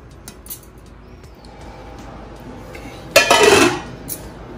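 Aluminium pot lid clattering against the metal pot, one loud ringing clank about three seconds in, after a few light clicks of handling.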